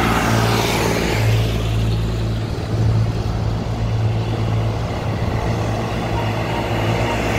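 Tractor engines running steadily as tractors drive past one after another, one passing close near the start.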